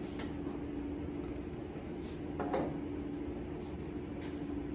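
Steady machine hum of a woodworking shop, with faint scratching and ticking of a small hand tool working at the carved letters of a wooden sign, and one brief louder clatter about two and a half seconds in.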